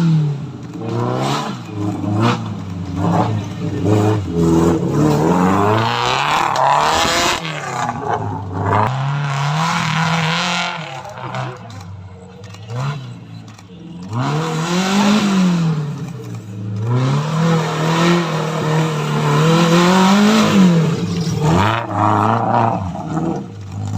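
Toyota 3S-GE four-cylinder engine of an off-road competition car revving up and easing off again and again, its pitch rising and falling every second or two as it works through the course.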